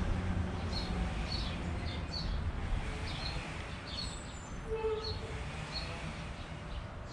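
A bird chirping over and over, short high chirps about two a second, over a steady low background rumble.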